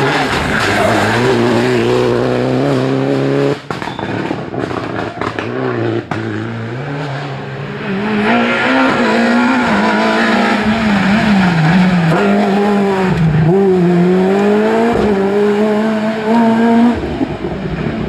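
Rally car engines at racing revs on a twisty tarmac stage. A Citroën DS3 rally car holds a steady high note, then there are a few seconds of sharp cracks and pops. A Ford Fiesta rally car's engine follows, its revs rising and falling again and again as it brakes and accelerates through the bends.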